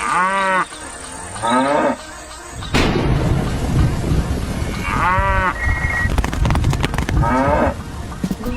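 Cattle mooing: four short calls, with a steady low rumble setting in about three seconds in and a quick run of clicks after the midpoint.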